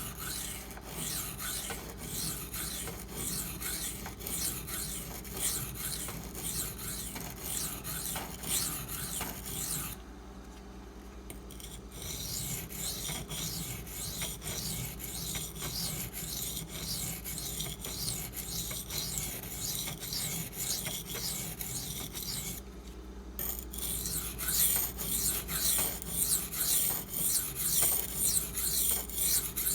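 Maxamet steel knife blade scraped in quick repeated strokes across a coarse silicon carbide sharpening stone, grinding the chipped edge away before re-sharpening. The strokes pause about ten seconds in and again briefly later, then come back louder.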